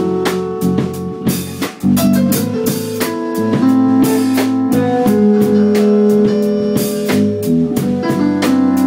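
Instrumental music: held keyboard or organ chords changing every second or so over a steady drum beat.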